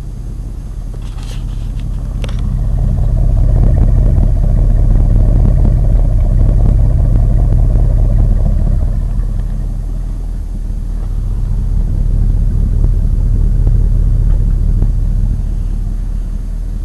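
Oldsmobile 307 V8 with a new cam and dual exhaust, revved up and held twice. The deep rumble builds about two seconds in, eases off around ten seconds, then rises again. It runs a little rough, as the owner says it isn't the smoothest running anymore.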